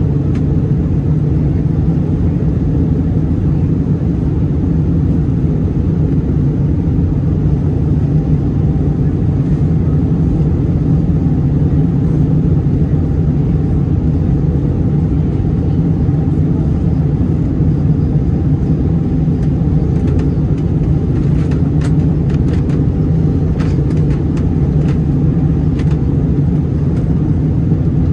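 Steady low rumble of cabin noise inside an Airbus A321-211 on descent, the drone of its CFM56 turbofans and the airflow over the fuselage heard from a window seat. A few faint clicks come through in the last several seconds.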